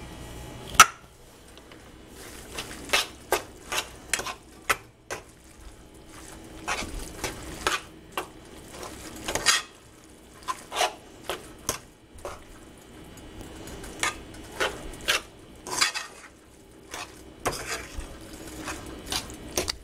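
Cutlery clinking and scraping against a ceramic bowl in irregular taps, with one sharp clink about a second in.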